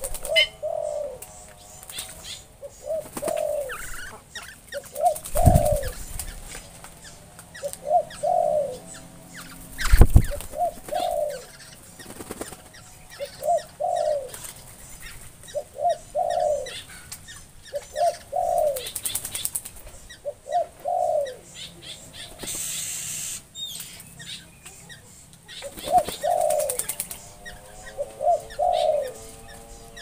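Black-winged stilts bathing in a small concrete pool, splashing and flapping their wings, with a sharp knock or splash about five seconds in and a louder one about ten seconds in. Over it a bird calls with a short, low, two-part call, repeated every couple of seconds.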